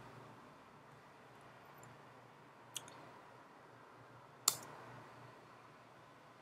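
Two sharp clicks at a computer, about a second and a half apart, the second louder, over a faint steady low hum.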